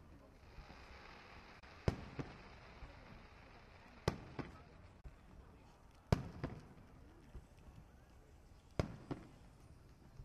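Aerial firework shells bursting: four sharp booms about two to three seconds apart, each followed by a short echo or smaller pops, with a hiss in the first couple of seconds.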